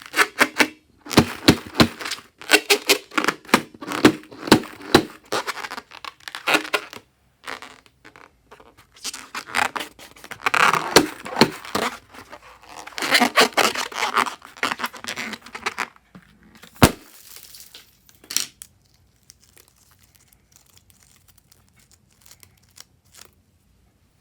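Fluffy slime being squished, stretched and pulled apart by hand, giving dense runs of crackly pops, snaps and tearing sounds. One sharp snap comes about 17 seconds in, and it grows quieter after that.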